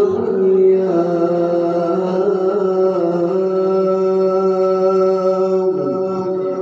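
A man reciting the Qur'an in melodic tilawah style into a microphone, holding one long note that wavers slightly, then letting it fall away about six seconds in.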